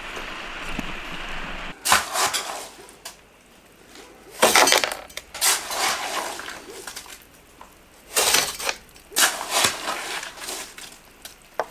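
Clinking and scraping of hand tools and building material in short, irregular bursts about a second apart, after a steady hiss in the first two seconds.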